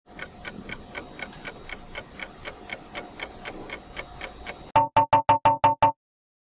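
Quiz countdown-timer sound effect: a clock-like tick about four times a second over a faint music bed, ending just under five seconds in with a rapid run of loud beeps lasting about a second, signalling that time is up.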